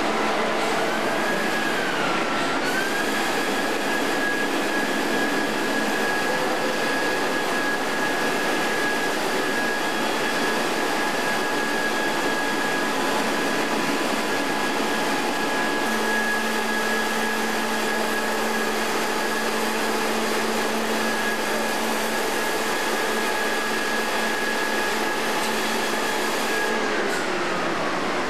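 Roll-off dumpster truck's engine and hydraulic hoist running, with a steady high whine as it tips and handles a steel dumpster container. A lower hum joins about halfway through, and the whine drops in pitch near the end as the hoist winds down.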